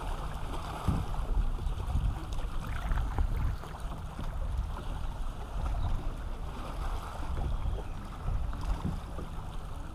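Wind buffeting the microphone in uneven gusts over water lapping against a kayak's hull as it glides along, with a few light knocks.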